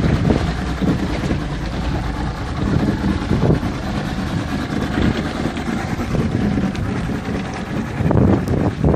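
Mercury outboard motor running steadily under wind rumble on the microphone, with a few brief knocks of handling.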